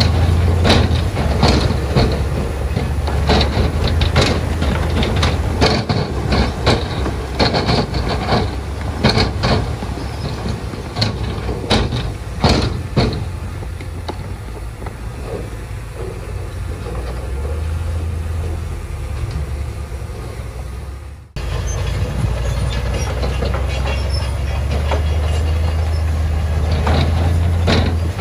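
Komatsu crawler bulldozer's diesel engine running under load, its steel tracks clanking and rattling. The clanks come thick and sharp over the first half, then the engine runs more steadily. The sound breaks off abruptly and picks up again a little after two-thirds of the way through.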